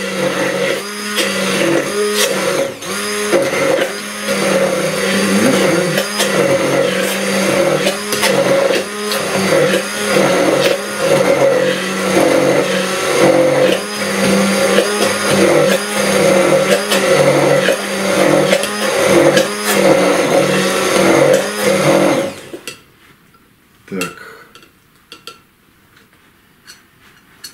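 Electric immersion blender running in a glass jar, emulsifying oil, raw egg and lemon juice into mayonnaise; its steady motor sound wavers in a regular rhythm. It stops about 22 seconds in, leaving a few faint clicks.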